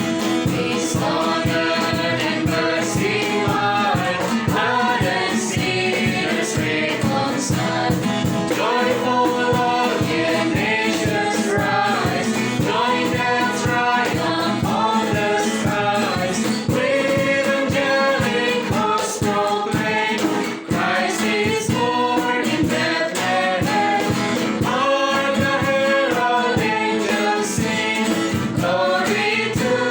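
Choir singing with instrumental accompaniment and a steady beat.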